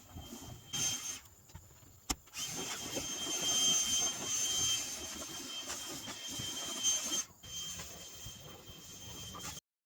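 Leaf blower running steadily, a rushing hiss of air with a constant high whine, blowing dust off a combine. The sound breaks off for about a second a little over a second in, with a sharp click, dips again near seven seconds, and stops abruptly just before the end.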